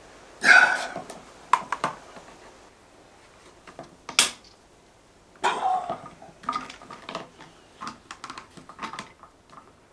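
Plastic irrigation fittings being screwed together by hand: orange compression fittings turned onto the PTFE-taped threads of a grey PVC tee, with small plastic clicks and scrapes and one sharp knock about four seconds in. Two short, louder voice-like sounds come near the start and about halfway through.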